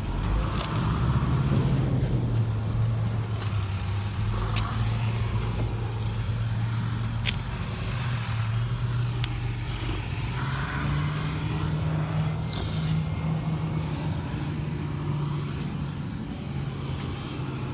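A motor vehicle's engine running steadily as a low hum, its pitch stepping up a little about ten seconds in, with scattered light ticks over it.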